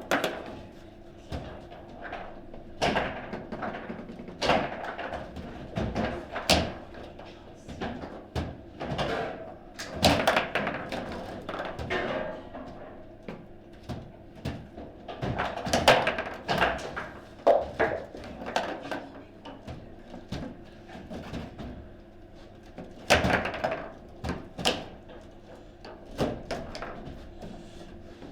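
Table football play: irregular sharp knocks as the ball is struck by the players on the rods and bangs against the table walls, with a few harder hits.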